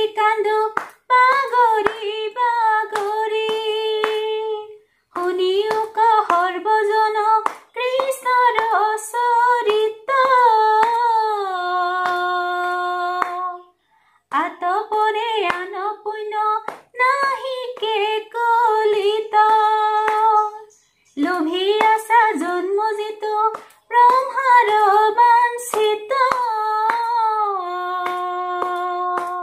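A woman singing an Assamese dihanam devotional song unaccompanied, in phrases of a few seconds that end on long held notes, with short breaks between phrases. She keeps time with hand claps throughout.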